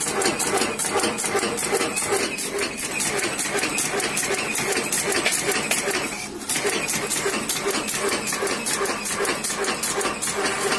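Automatic agarbatti (incense-stick) making machine running, with a rapid, even mechanical clacking of several strokes a second as it feeds bamboo sticks and coats them with incense paste. The clacking dips briefly about six seconds in.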